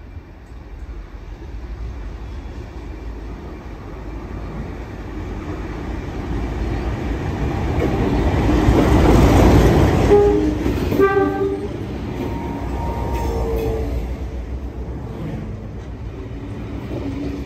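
A train led by 44 class diesel-electric locomotive 4490 approaches and passes, its engine and wheels getting steadily louder to a peak about nine to ten seconds in. A short horn blast sounds just after the peak. The passenger carriages then roll by.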